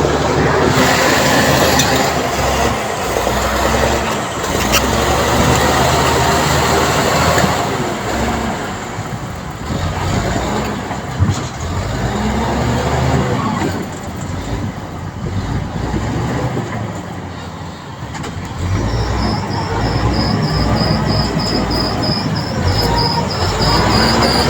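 Heavy diesel construction machinery running, its engine revving up and down under load. About two-thirds of the way through, a high metallic squeal starts and keeps going.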